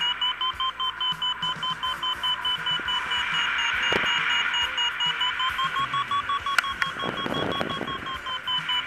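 Paragliding variometer beeping rapidly, about five short beeps a second, its pitch rising a little past halfway and easing back near the end: the climb tone that signals the glider going up in lift. A rush of wind on the microphone runs underneath.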